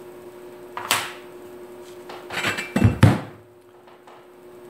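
Metal parts handled on a workbench: a sharp clink about a second in, then the welded steel-tube linear rail with its bearing carriage shifted and set down with a few heavy knocks a little before three seconds in. A faint steady hum runs underneath.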